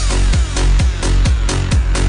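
Electronic dance music with a kick drum beating steadily and a heavy bass that comes in at the start.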